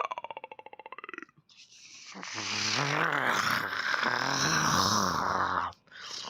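A long, loud, rough belch lasting about four seconds, its low pitch wavering, with a short pulsing sound in the first second before it and a shorter belch near the end.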